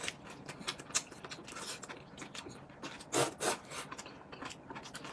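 Close-miked eating sounds: quiet chewing with wet mouth clicks and smacks as noodles and banana are eaten, with a short louder burst, like a slurp, about three seconds in.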